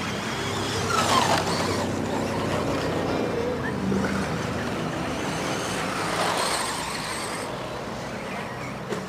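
Radio-controlled off-road cars running on a dirt track, their motors whining up and down in pitch as they speed up and slow down.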